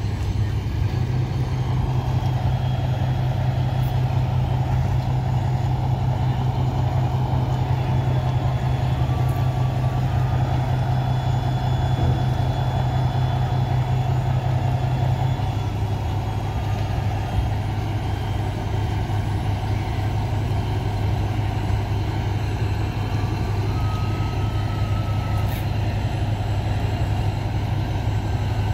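Heavy vehicle engine running steadily with a low hum, which changes about halfway through.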